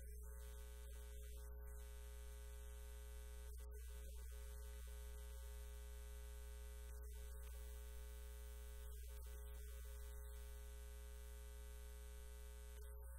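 Steady electrical mains hum: a constant low drone with a stack of steady overtones above it, with no speech.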